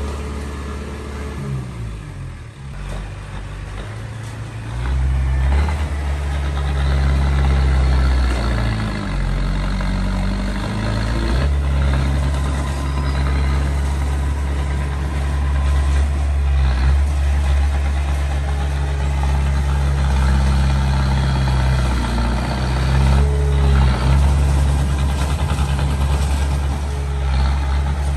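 Small bulldozer's diesel engine running under changing load. Its revs drop about a second in, pick up again about five seconds in, waver once more around ten seconds, then hold steady and loud.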